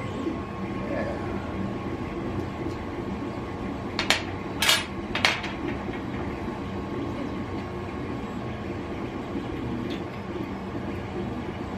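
Three sharp metallic clinks about half a second apart, each ringing briefly, as a small tool or metal hardware is set down on a glass-topped table. A steady low hum runs underneath.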